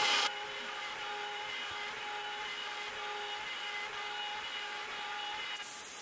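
Makita compact router spinning in a Onefinity Journeyman X-50 CNC router while a quarter-inch downshear bit cuts out walnut boards: a steady whine over cutting hiss. It is louder for the first moment, then runs evenly.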